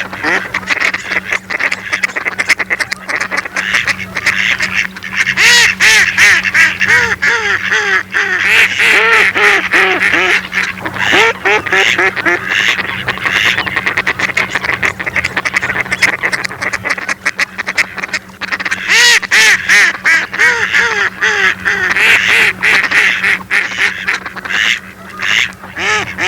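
Mallard ducks quacking over and over, many calls overlapping in busy runs, with a steady low hum underneath.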